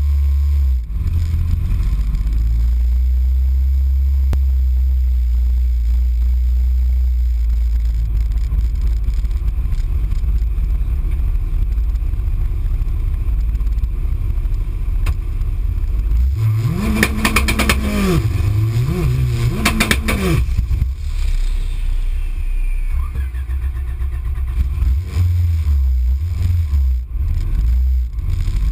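Turbocharged Honda Civic engine idling, heard from inside the cabin. About two-thirds through it revs up three times, holding a steady high pitch for about a second on the first rev, with sharp popping and crackling, then settles back to idle.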